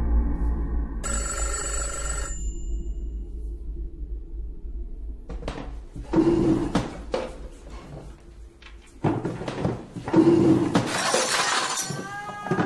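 A ringing tone over a low hum, then from about halfway a series of loud, sudden, noisy crashes with a rising, pitched glide near the end.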